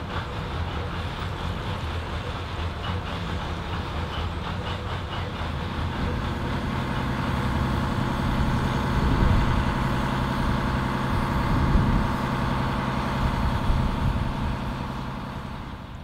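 Diesel engine of a narrow-gauge locotracteur (small shunting locomotive) running steadily. It grows louder through the middle and fades away near the end.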